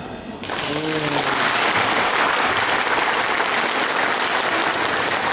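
Audience applause starting about half a second in and going on steadily as the children's song ends, with a brief voice call near the start.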